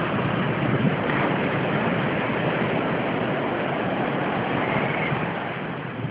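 Ocean surf breaking and washing up a sand beach, a steady rushing noise that eases a little near the end.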